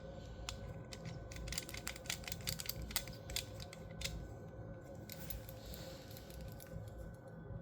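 Toy Master's laser screwdriver being handled: a run of small plastic clicks and rattles, densest from about one to four seconds in, as its parts are worked.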